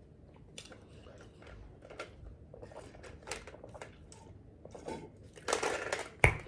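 Close-miked light handling noises on a table: scattered small clicks and rustles, a louder rustle about five and a half seconds in, then a single sharp knock just before the end.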